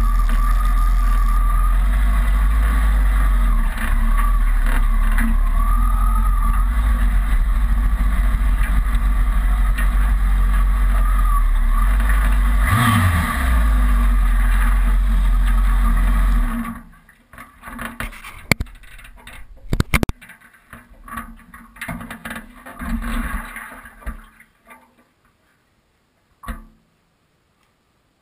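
Kawasaki ZRX's inline-four engine running at low speed, with a short rise in revs about two-thirds of the way in, then cut off abruptly. A scattering of clicks and knocks follows, dying away to quiet.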